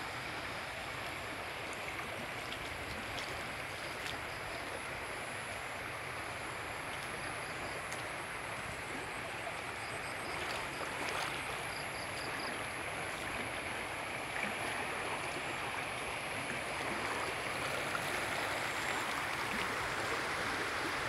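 Floodwater rushing and flowing in a steady rush, growing a little louder in the second half.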